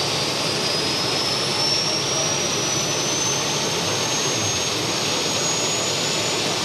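Modified pulling tractor's gas turbine engines running: a steady dense rush with a thin high whine that climbs slowly in pitch.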